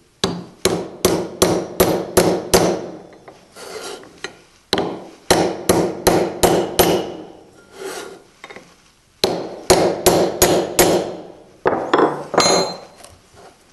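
A hammer striking a steel nail-puller bar held on the steel ferrule of a Japanese chisel's wooden handle, driving the ferrule down the handle. Quick, sharp strikes with a short metallic ring, about four a second, in three runs of several blows and a shorter run near the end.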